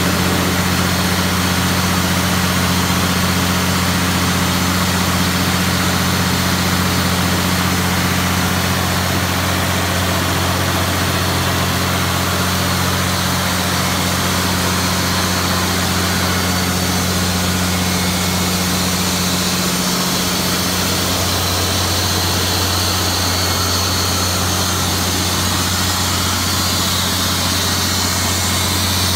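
2000 Ingersoll-Rand HR2 900 CFM / 350 PSI portable air compressor running on a test run: its diesel engine gives a steady low drone over a broad rushing noise of the cooling fan and air.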